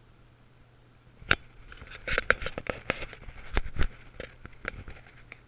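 Handling noise: a quick, irregular string of sharp clicks and knocks that starts about a second in and runs on until the sound cuts off, over a faint steady hum.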